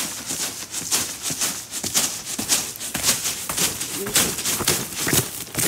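Ice crunching and crackling on a frozen trampoline mat as a child jumps on it: a dense, irregular run of sharp crackles and clicks.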